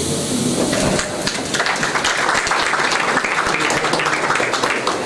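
An audience applauding, a dense patter of hand claps that picks up about a second and a half in.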